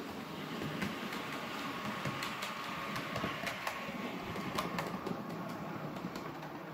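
Model railway multiple-unit train running along the track: a steady rolling rumble with irregular sharp clicks of the wheels over rail joints and a faint steady motor whine.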